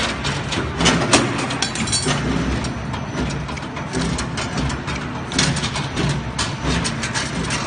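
Steel rod bending machine running: a steady motor hum and the rod rattling through the straightening rollers, broken by sharp clicks and knocks from the bending head as it bends the rod.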